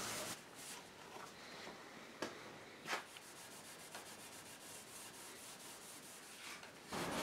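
Faint scratchy rubbing of steel wool wet with scratch-cover polish, scrubbed over the finished wood of an antique cupboard base to clean off water drip marks. Two light taps come a couple of seconds in.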